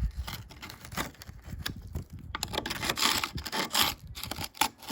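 Rubber door seal being pulled off a rusty A-pillar flange on a Mk5 Ford Transit: irregular tearing, scraping and crunching of loose, flaking rust, loudest about three seconds in.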